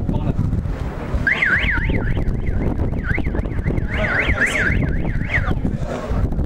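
A high warbling tone that sweeps rapidly up and down several times a second, starting about a second in and stopping shortly before the end, over steady wind noise on the microphone.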